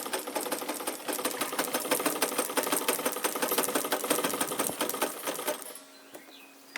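Vintage Italian Necchi sewing machine sewing a zigzag stitch at a steady pace, a fast even clatter of needle and feed, which stops suddenly near the end.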